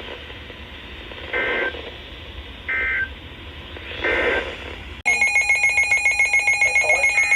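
Three short data bursts of an Emergency Alert System end-of-message signal, about a second and a quarter apart, over radio hiss. About five seconds in, a loud electronic alert tone starts abruptly: a rapid, evenly pulsing trill of several pitches at once.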